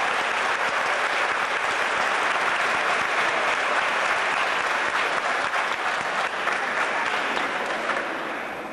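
Audience applauding, dense and steady, tapering off near the end.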